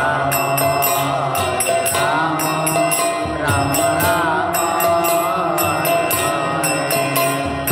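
Devotional kirtan: a voice chanting a mantra in a wavering melody, with a mridanga drum and small hand cymbals keeping a steady beat.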